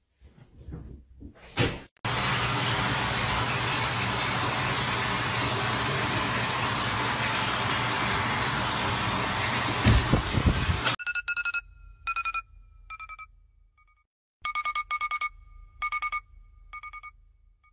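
A loud steady rushing noise for about nine seconds that cuts off suddenly, followed by high beeping in short rhythmic groups of pulses.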